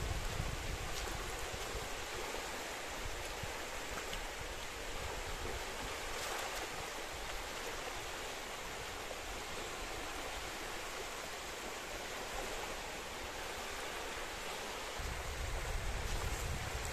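Small waves washing steadily onto a sandy shore, with a low rumble of wind on the microphone at the start and again near the end.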